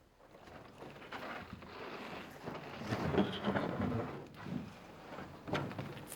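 A large sheet of plastic dimple membrane rustling and crinkling as it is handled and held against a wall. The rustle builds to a peak about three seconds in, then dies down, with a few short crackles near the end.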